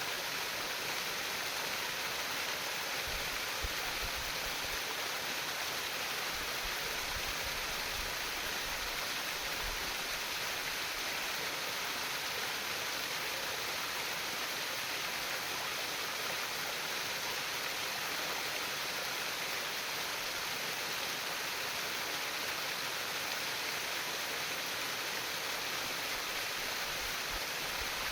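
Steady trickling and splashing of a small stream flowing over stones, an even rushing with no change in level.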